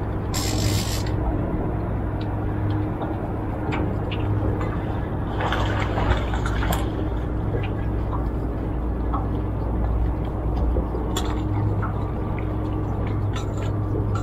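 Boat motor running steadily with wind and water noise, broken by a couple of short splashy hisses, one about half a second in and another about six seconds in.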